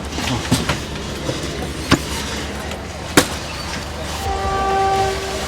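Passenger train carriage rumbling, with several sharp metallic clanks. Near the end comes a steady pitched tone about a second long.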